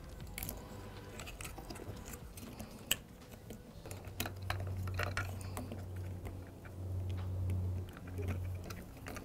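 Hands handling a steering-wheel wiring harness, its connectors and plastic trim: scattered small clicks and rustles, with one sharper click about three seconds in. A low hum comes and goes from about four seconds in.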